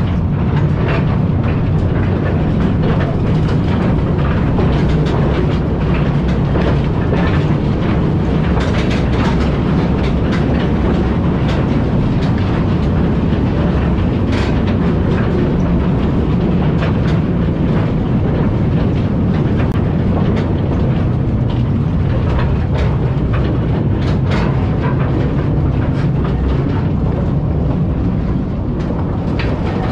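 Coal mine trolley train running on rails: a loud, steady low rumble with irregular sharp clicks and clacks of the wheels on the track.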